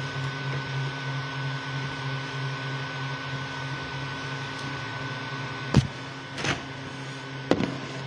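Creality Ender 3 V2 3D printer running a print: a steady machine hum with a pulsing low drone and a thin steady whine, and a few sharp knocks near the end.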